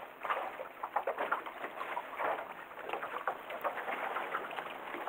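Small waves slapping and lapping against the hull of a small boat, in irregular splashes.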